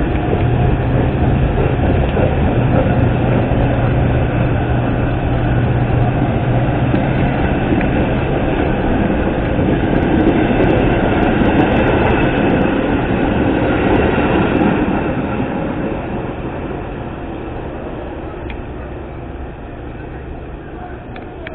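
Metra diesel commuter train pulling out and running past: the low steady drone of the locomotive engine and the rumble of the cars, with a quick run of wheel clicks over rail joints midway, then fading as the train moves away.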